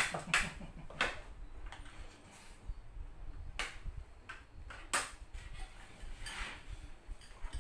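Metal spoons clinking against plates, bowls and a cooking pot while food is served at the table: a few sharp, separate clinks with quiet between them.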